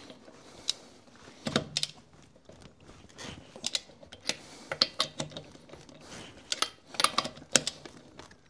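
A 21 mm socket on a long torque wrench working the wheel bolts loose, making irregular sharp metallic clicks and knocks in small clusters.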